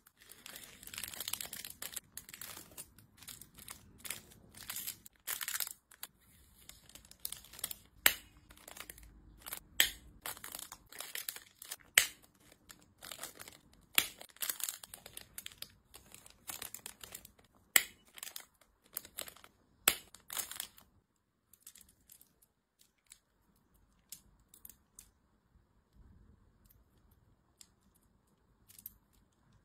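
Clear plastic packaging bags crinkling and rustling as they are handled and sealed, with sharp snaps and clicks scattered through. About two-thirds of the way in it turns much quieter, with only light scattered ticks.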